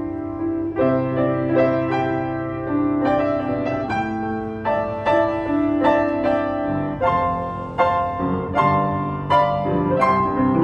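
Yamaha W106B upright piano, built in 1981, played for a sound check: a slow melodic passage of struck notes over held chords, with a bass note coming in about a second in.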